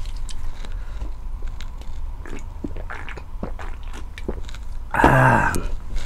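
Close-miked mouth sounds of eating spicy noodles and eggs: scattered small clicks of biting and chewing over a steady low hum. About five seconds in comes a short, loud throaty vocal sound with a slightly falling pitch.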